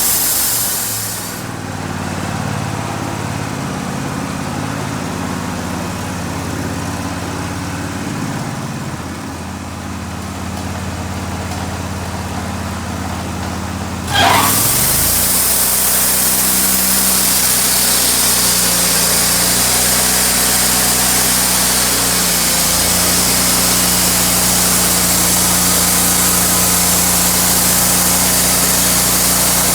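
Sawmill running and milling a pecan log: its engine runs steadily while the blade hisses through the wood at the start. The cutting noise drops away for a stretch. About halfway through, a brief sharp squeal comes as the blade goes back into the log, and it then cuts steadily.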